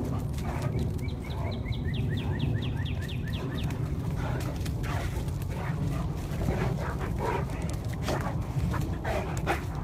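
Two large dogs play-wrestling, with dog growls, yelps and panting amid scuffling. Steady low wind rumble on the microphone underneath.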